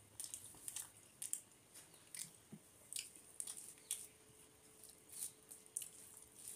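Faint, irregular wet clicks and squishes of eating by hand: fingers mixing and squeezing rice with a side dish on a metal plate, with some chewing.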